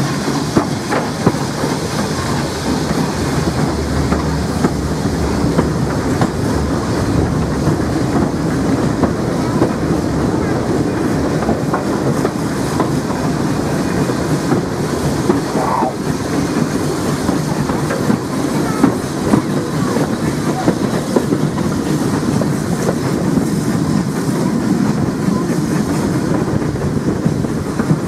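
Steam-hauled passenger train running along the line behind an SECR C class 0-6-0 locomotive: a steady running noise with wheels clattering over the rail joints.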